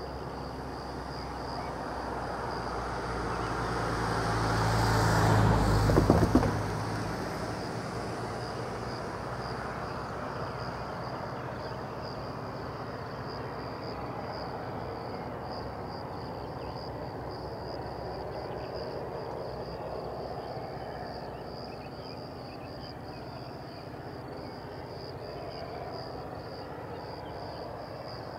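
A motor vehicle passing close by: its engine note builds for about six seconds and cuts off suddenly. Crickets chirp steadily throughout.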